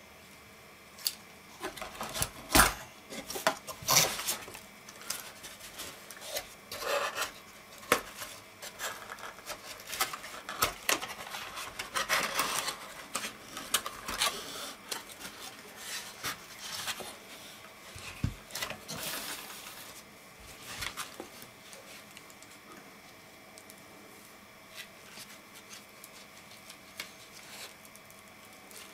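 Irregular rustling, scraping and knocking of a cardboard box and an Intel stock CPU cooler being handled as the cooler is fitted into the box and the flaps are folded. After about 20 seconds the sounds thin out to a few faint ticks.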